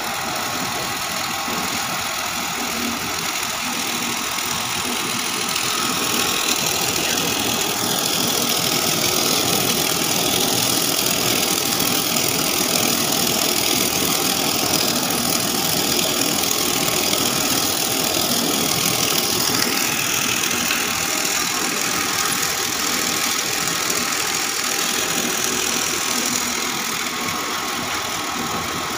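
Soya chunks extruder machine running steadily, a continuous noisy mechanical din that grows a little louder from about six seconds in until near the end.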